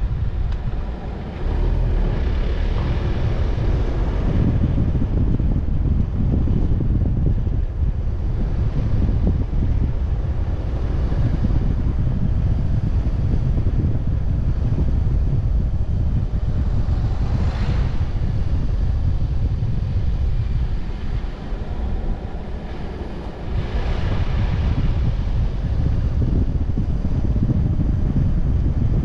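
Wind rumbling on the microphone over the steady road noise of a moving car, with a few brief louder rushes of sound.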